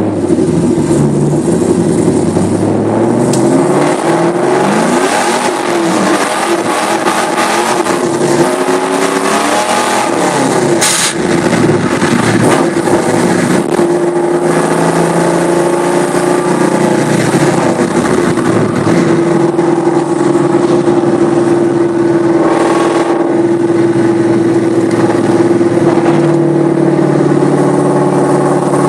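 Camaro's LQ4 6.0-litre V8 under way, its pitch rising and falling several times as it accelerates and shifts, then holding a steady cruising note for the second half.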